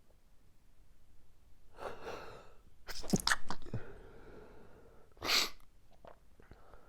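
A man sneezing in an allergic sneezing fit: a drawn-in breath about two seconds in, a loud sneeze about a second later, then a second, shorter burst of breath a little after five seconds.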